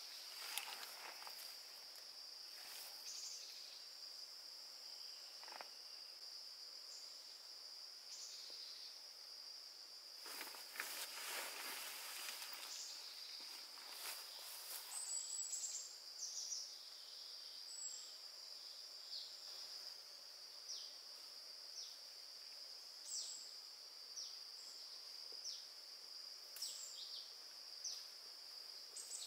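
Steady, high-pitched drone of insects, with short chirps over it and a burst of rustling about ten seconds in.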